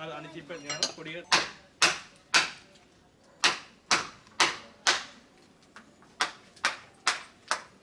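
A mallet strikes a chisel, cutting into a wooden carving held in a vise. The knocks are sharp, about two a second, in three runs of three or four with short pauses between them.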